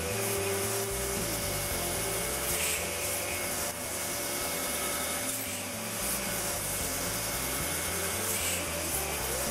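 Steady machining noise of a drill cutting metal in a machine tool, an even hiss-like grinding sound with a faint steady whine, holding level throughout.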